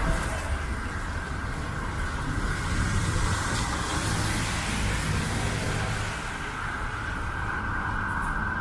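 City traffic on a rain-soaked street: cars and a van pass with a low engine rumble and tyres hissing on the wet pavement, the hiss strongest around the middle.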